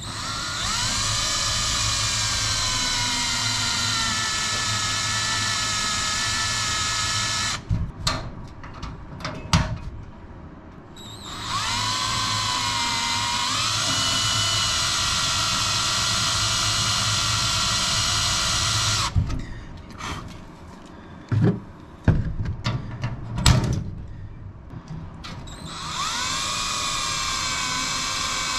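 Power drill drilling out faulty solid rivets on an aircraft main spar. It runs in three spells of several seconds each, the whine dipping in pitch as the bit bites into each rivet head. Between the spells there are sharp clicks and knocks.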